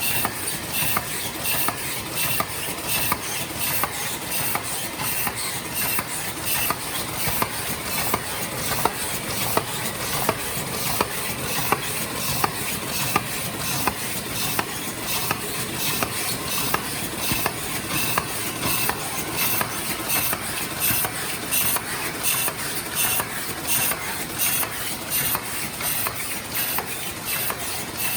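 Paper sleeve forming machine running steadily, its mechanism clattering in a fast, even rhythm of clicks.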